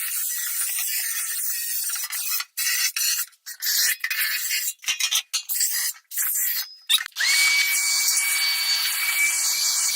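Metal being scrubbed with a wire brush in quick, uneven rasping strokes with short pauses, cleaning the part before it is painted. About seven seconds in, the scrubbing gives way to a steady hiss with a high whistle that slides up and then holds.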